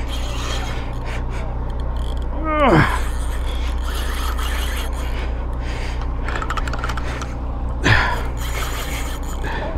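Steady low drone of the charter boat's motor running. A short vocal sound drops steeply in pitch about two and a half seconds in, and a brief knock comes near the end.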